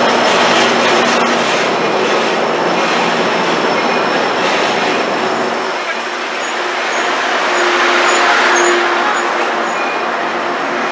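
Metrolink bilevel passenger coaches rolling past close by, with a steady rumble and clatter of steel wheels on the rails. A few faint high squeals come through around the middle.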